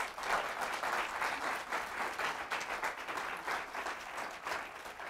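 Audience applauding, starting suddenly and fading out toward the end.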